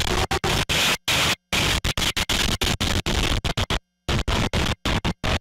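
Harsh, static-like noise that cuts in and out many times a second, with a few longer gaps of complete silence: a garbled, stuttering recording track.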